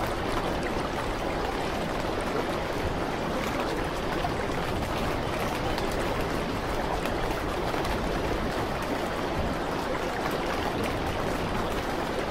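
Steady sound of running water, like a flowing stream, even and unbroken.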